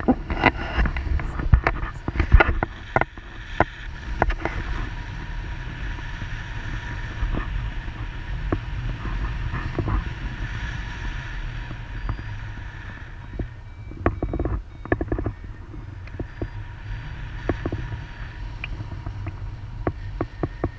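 Airflow buffeting the camera microphone during a tandem paraglider flight: a steady low rumble of wind noise. Scattered knocks and rustles, likely from handling, are heard in the first few seconds and again about fourteen seconds in.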